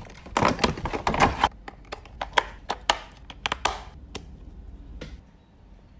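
Hard plastic parts of a rainbow marquee light kit clicking and clattering as they are handled and snapped into place: a quick run of sharp taps through the first four seconds, then only faint handling.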